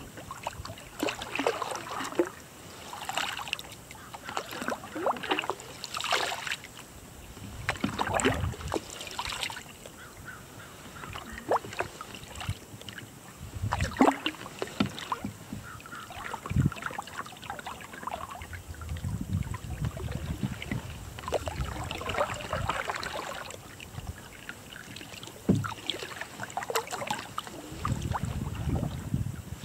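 Bent-shaft Sawyer canoe paddle stroking through calm water beside a pack canoe: a splash and drip of water with each stroke, every second or two, with a few sharp knocks now and then.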